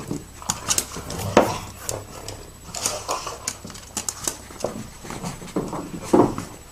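Scattered clicks, taps and rustling with a few brief animal sounds, the loudest about six seconds in.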